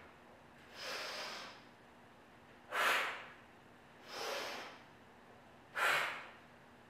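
A woman doing yogic fire breath: two sharp, forceful exhales through the mouth, each about half a second, alternating with two softer, longer inhales, about one breath cycle every three seconds.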